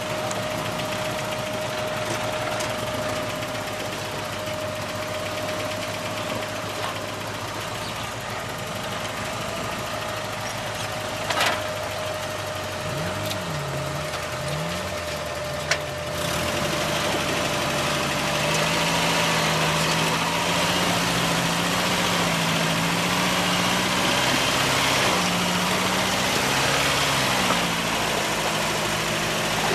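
Off-road vehicle engine running at low speed, with a thin steady whine in the first half and two sharp knocks. Past halfway it gets louder and its pitch rises and falls repeatedly as the throttle is worked.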